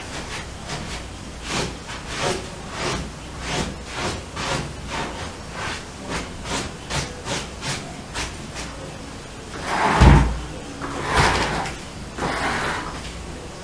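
Rhythmic brushing strokes, about two to three a second, as from household cleaning. About ten seconds in they give way to a heavy thump and louder scraping and shuffling.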